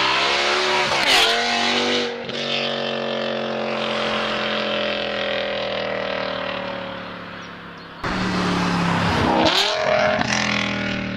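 BMW S85 V10 accelerating hard, its pitch climbing to a high scream, with a gearshift about a second in, then pulling away with falling pitch and fading. About eight seconds in, another clip cuts in abruptly with a second full-throttle run and another shift.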